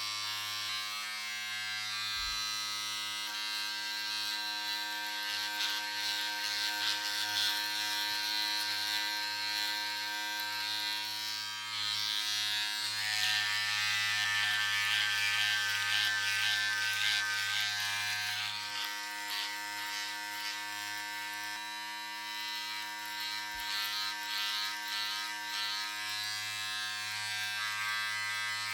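Electric razor buzzing steadily while shaving, a low hum under a rasping, crackling cutting noise. The rasp swells and turns grittier about halfway through, then eases.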